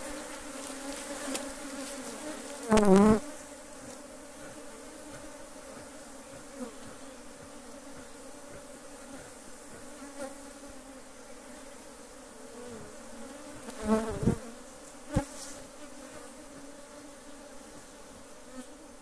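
Agitated honeybees buzzing in a steady drone around an opened hive, the colony made defensive by the lid being lifted without smoke. Single bees fly close past the microphone with a louder buzz that bends in pitch, about three seconds in and again near fourteen seconds, and a sharp click follows a second later.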